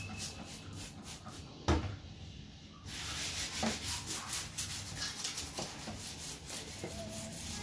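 A cloth rubbing back and forth over a kitchen countertop in quick repeated wiping strokes, getting louder about three seconds in. A single sharp knock sounds just under two seconds in.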